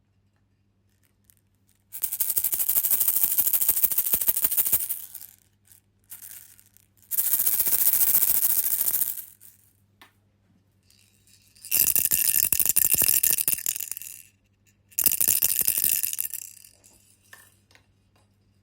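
A child's toy rattling, a dense fast clatter in four bursts of two to three seconds each.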